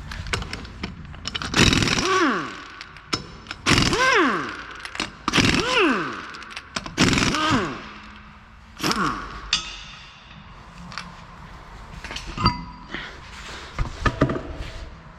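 Pneumatic impact wrench run in five short hammering bursts, each followed by a falling whine as it spins down. Near the end come a couple of sharp metal clinks, one with a brief ring.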